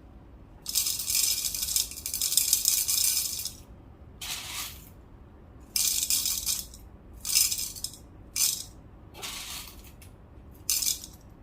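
Whole coffee beans poured into a container to weigh out an espresso dose, rattling as they land. There is one longer pour of about three seconds, then several short trickles of beans added in small shakes.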